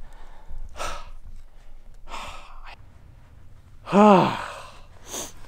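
A man breathing out hard twice, then a loud sigh falling in pitch about four seconds in, and a short breath near the end: the winded relief of a hunter who has just made a difficult shot.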